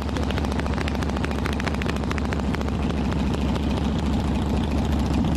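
Harley-Davidson V-twin motorcycle engine running steadily through its chrome exhaust, a deep, even rumble of rapid firing pulses. This is the exhaust note the maker designed to sound like horse hoofbeats.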